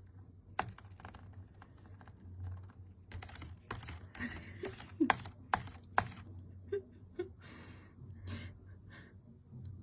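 Parrot making scattered sharp clicks and taps, irregular and some louder than others, with a few short low chirps about halfway through.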